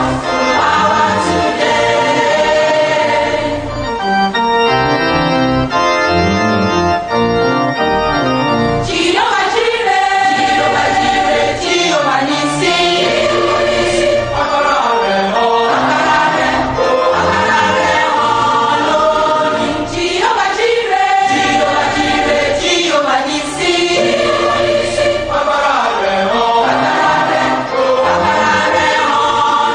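Gospel choir singing with organ accompaniment.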